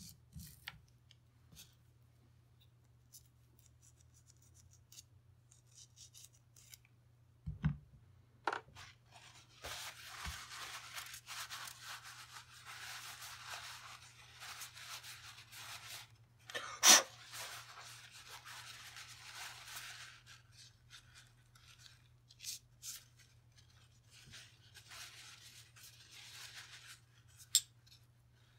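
Pipe cleaner being scrubbed through the firing pin channel of a Ruger 10/22 bolt: dry, scratchy rubbing in long stretches, with scattered small clicks and one sharp click near the middle.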